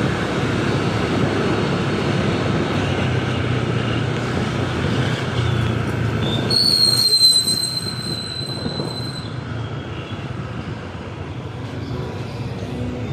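Motorcycle on the move: a steady engine hum under road and wind noise. About six and a half seconds in, a high steady squeal comes in for about two and a half seconds, the loudest sound here.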